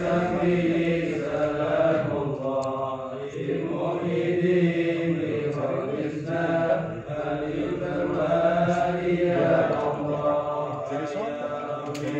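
A group of men chanting Arabic prayers together in unison, a continuous melodic recitation that moves in long phrases with short breaks for breath.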